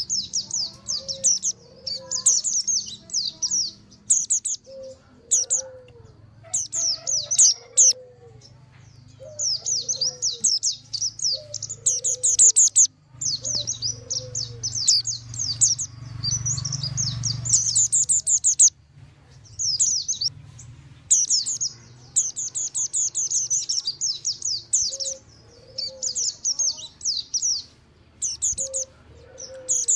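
Mountain white-eyes (pleci montanus) chattering noisily in fast clusters of high twittering chirps with brief pauses between bursts: a lure (pikat) recording for white-eyes. Short, lower, falling notes repeat underneath in the first half and again near the end.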